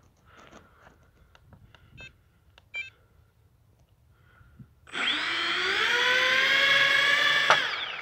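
An RC C-130 Hercules model's four motors and propellers run up to a steady whine about five seconds in. The whine holds for about two and a half seconds, then falls as the motors wind down near the end. A few faint clicks come before it.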